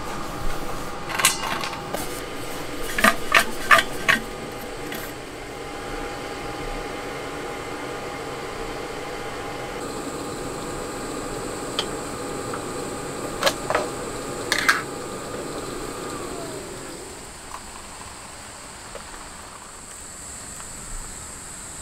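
A small machine runs with a steady hum, with several sharp clicks and knocks in the first four seconds and a few more about 13 to 15 seconds in. The hum winds down and stops about 16 seconds in. A thin, high, steady insect chirring runs underneath from about 10 seconds in.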